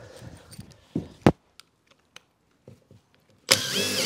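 A few light clicks and knocks as screws are handled, with one sharp knock a little over a second in. Near the end a power drill-driver starts with a short rising whine, driving a 4-inch screw down through the aluminium door sill's thermal break.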